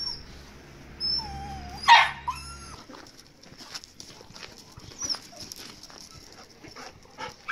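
Dog whining in play, with a few bending whines and one sharp yelp about two seconds in, then a smaller yip around five seconds in.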